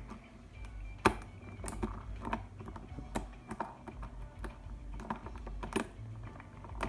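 Lock picks clicking and scraping in the keyway of an Iseo padlock as its pins are picked, with a few sharper ticks scattered through.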